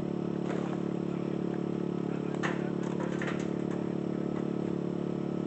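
Steady low hum of a running motor, with a few short faint sounds about halfway through.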